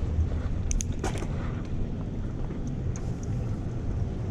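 Steady low rumble of wind buffeting an action camera's microphone, with a few light clicks and rattles about a second in.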